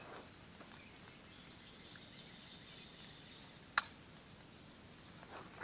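Insects trilling steadily on one high, unbroken pitch, with a single sharp click a little under four seconds in.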